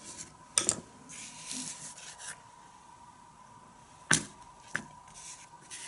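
Stiff card colour wheel being handled and lifted off a cutting board: a few sharp taps and clicks, two in quick succession about half a second in and another about four seconds in, with a brief papery rustle in between.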